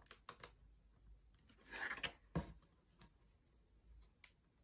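Craft knife working thin laser-cut plywood: a few sharp clicks and light scraping, with a longer scrape about two seconds in.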